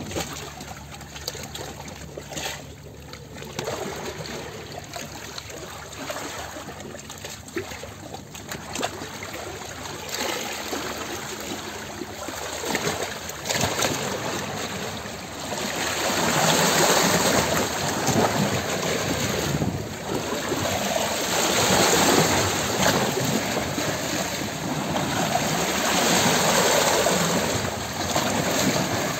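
Rushing, bubbling water noise with a faint steady low hum in the first part. The water noise grows louder about halfway through.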